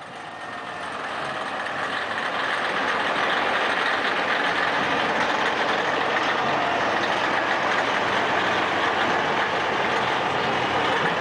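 Steady running noise of the truck engine towing a flatbed parade float, fading in over the first couple of seconds.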